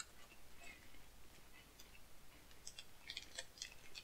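Near silence, with faint scattered clicks and crackles that are thickest about three seconds in.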